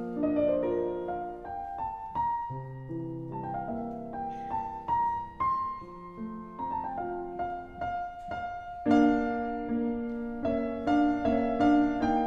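Background piano music: a slow melody of single struck notes that ring on over held lower notes.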